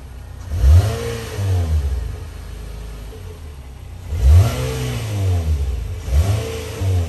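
2020 Nissan Altima SR's 2.5-litre inline-four on its stock exhaust, idling while parked and free-revved three times, each rev rising and falling back to idle within about a second. It is heard from beside the rear of the car.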